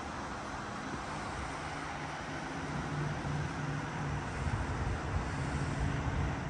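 Steady outdoor rumble of road traffic and wind, with a low engine hum, growing a little louder in the second half.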